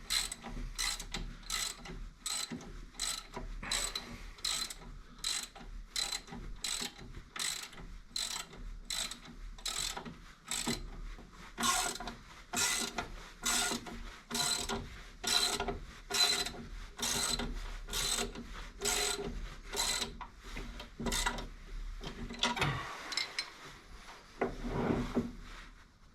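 Hand ratchet wrench clicking in steady back-and-forth strokes, about two a second, as a fastener is worked, with a couple of heavier metal sounds near the end.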